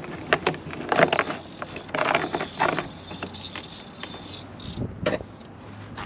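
Scattered light clicks and taps of plastic door trim and window-switch parts being handled, with a rustle that fades out about halfway through.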